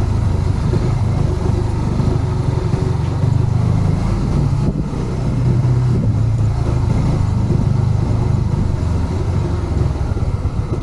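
Motorcycle engine running steadily at low speed while the bike rides slowly, with a brief easing off a little under halfway through.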